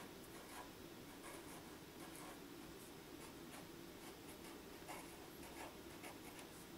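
Felt-tip marker writing on paper: a run of faint, short scratchy strokes as letters are drawn.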